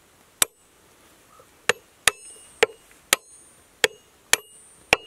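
A hammer striking a cast 18K gold railroad spike to drive it into a wooden tie without a pre-drilled hole. There are about eight sharp metallic blows at an uneven pace of roughly two a second, several leaving a brief high ring.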